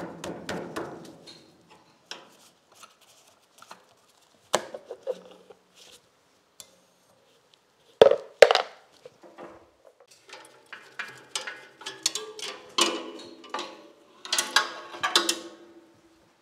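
Metal parts of an Ingersoll Rand air compressor being unbolted and handled: scattered knocks and clanks, two sharp knocks about eight seconds in, then a run of clattering with some ringing near the end.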